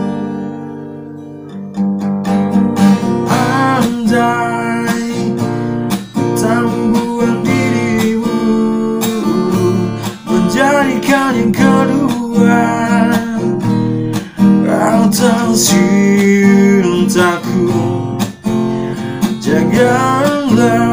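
Acoustic guitar strummed in chords, with a man singing over it. About two seconds in, the strumming picks up again after a chord dies away.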